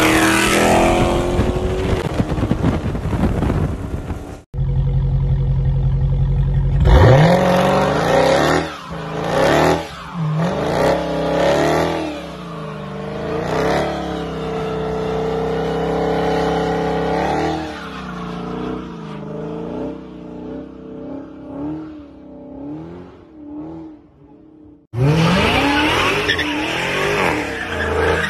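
Dodge Charger V8 engines in quick succession: one at full throttle as it accelerates past, then one idling with a deep, steady burble that revs up hard about seven seconds in and is held high with repeated rises and dips through a smoky burnout. Near the end another Charger revs hard, its rear tyres spinning as it slides sideways.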